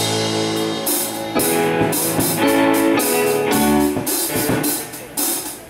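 Live band playing the opening bars of a song: strummed electric guitar chords over a drum kit with cymbal hits. The music eases off briefly about four seconds in, then comes back in.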